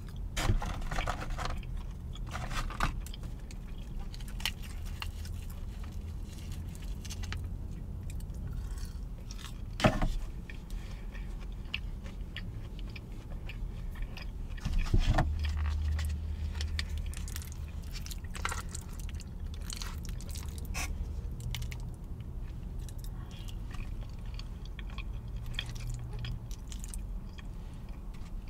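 Close-miked chewing and mouth sounds of someone eating, with sharp clicks and crinkles from handling plastic sauce cups, packaging and a fork a few times. A steady low rumble lies underneath.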